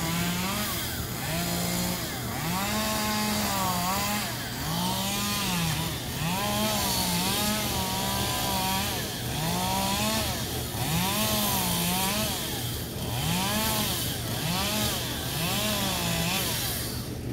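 Chainsaw revving up and down over and over while cutting up a fallen tree, its engine pitch climbing to full speed and dropping back roughly every second or two.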